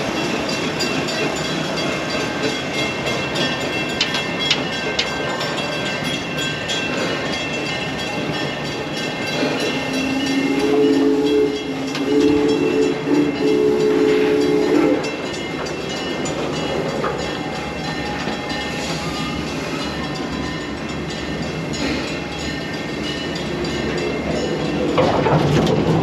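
Theme-park train's horn sounding three two-note blasts about ten seconds in, over the steady rumble of the train running along its track.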